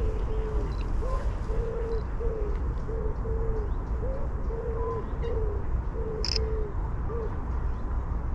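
Pigeons cooing: a steady run of short, low coos, about two a second, some ending with a slight upward lift, over a steady low rumble.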